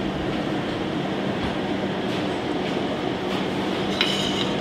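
Steady noise of kitchen ventilation running, with a constant low hum. About four seconds in, one short clink.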